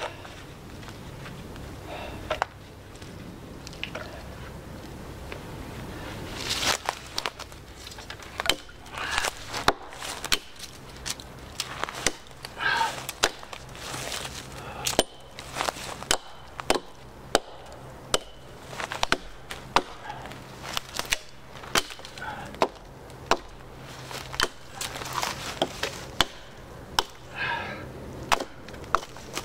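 Firewood being chopped with a blade: a run of sharp, irregular strikes on wood, roughly one or two a second, starting several seconds in.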